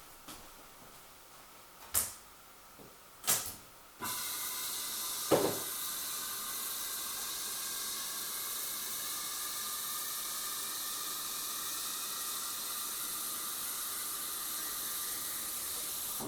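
Two sharp clicks, then a steady hiss starts abruptly with a knock just after, and cuts off near the end.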